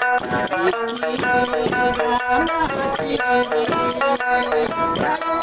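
Okinawan eisa folk music: a singer over plucked sanshin with regular taiko and hand-drum beats.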